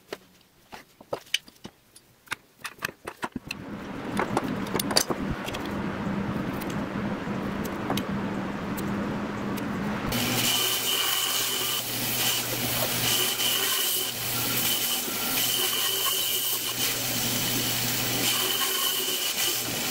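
Light clicks and taps of wooden blocks being handled and pressed together, then a steady machine noise. From about ten seconds in, a bandsaw runs and cuts a glued-up block of laminated light and dark wood.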